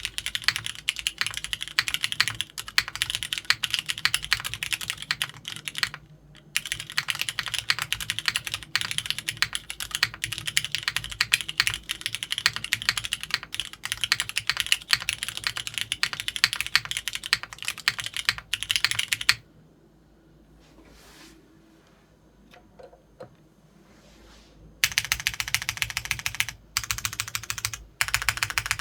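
Fast typing on a TGR Jane V2 CE mechanical keyboard with lubed and filmed vintage Cherry MX Black linear switches, a polypropylene plate and GMK keycaps: a dense run of key strokes and bottoming-out clacks. There is a brief break about six seconds in, and a pause of about five seconds about two-thirds of the way through before the typing resumes.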